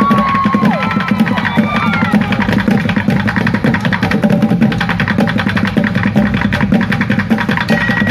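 Music with a fast, steady percussion beat, with a few short gliding tones near the start.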